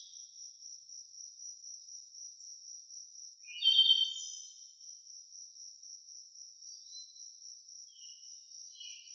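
Crickets chirping in a steady, high pulsing trill, with a short burst of bird calls about four seconds in, the loudest sound, and brief bird chirps near the end.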